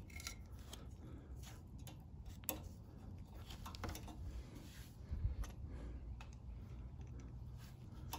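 Faint, scattered light clicks and ticks of thin metal choke linkage rods being handled and fitted to the carburetor of a Honda GCV160 small engine, with a soft bump about five seconds in.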